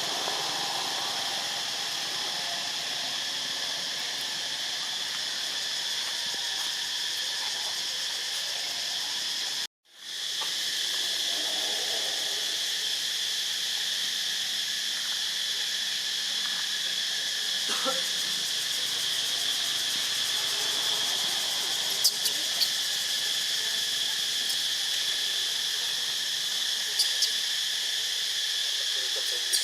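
Steady high-pitched drone of a forest insect chorus, broken off for an instant about a third of the way in, with a few short sharp clicks near the end.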